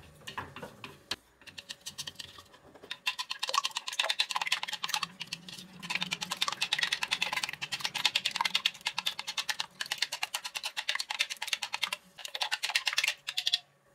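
Chopsticks beating raw egg mixture in a bowl: rapid clicking of the chopsticks against the bowl. A few scattered taps at first, then fast, steady clicking for most of the time with brief pauses.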